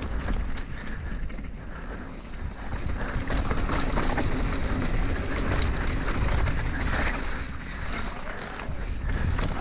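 Rocky Mountain Altitude full-suspension mountain bike riding fast down dirt singletrack: knobby tyres running over packed dirt, with chain and frame rattling and clicking over the bumps. Wind rumbles on the microphone.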